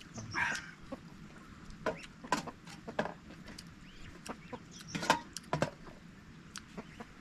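Scattered short clucking calls of fowl, with sharp clicks in between.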